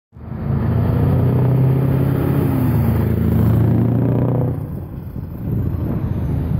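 Scania V8 diesel truck engine driving past close by, loud and steady for about four seconds, then dropping away sharply as the truck goes by.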